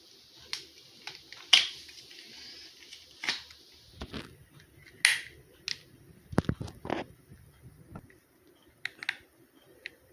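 Irregular clicks, taps and short rustles of a camcorder being handled and set up. The sharpest clicks come about a second and a half in and about five seconds in, with a few duller knocks a little later.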